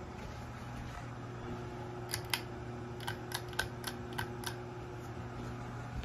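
Hunter Westminster ceiling fan motor running with a steady low hum; the fan has a bad capacitor. About halfway through comes a quick series of roughly eight light, sharp clicks.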